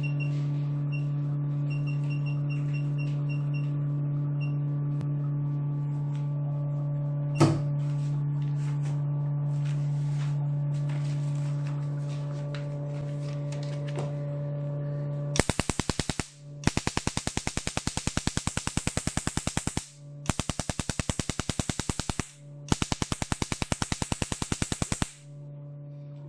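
1064 nm picosecond tattoo-removal laser firing at ten pulses a second, each shot a sharp snap as it strikes a sheet of paper, in four runs of one to three seconds in the second half. Under it the machine runs with a steady hum, with a few rapid touchscreen beeps in the first four seconds and a single click about seven seconds in.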